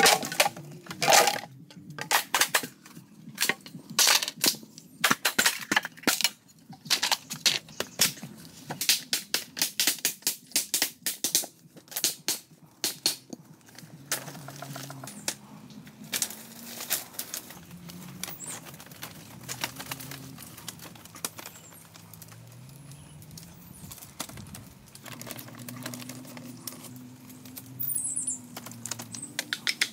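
Machete chopping: a fast, irregular run of sharp strikes through the first half, then sparser knocks and clatter of bamboo poles being handled, with a low wavering hum underneath.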